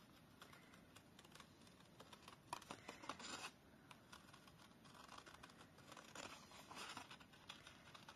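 Small scissors snipping through cardstock in short, faint snips, cutting around a stamped image, with the snips coming in clusters about two and a half seconds in and again from about five seconds.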